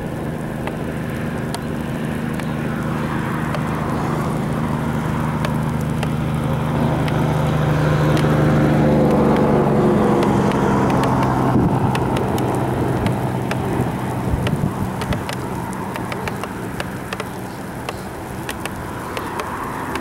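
A vehicle's engine and tyre hum swelling as it approaches, loudest about halfway through, then fading as it passes, with raindrops ticking throughout.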